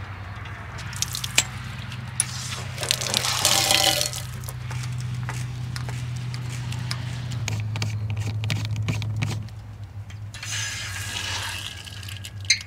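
Water running from an outdoor freshwater spigot as a water filter and hose are fitted and the tap is turned on. Clicks and knocks of the metal fittings come about a second in, then a loud rush of water about three to four seconds in. A steady low hum runs beneath.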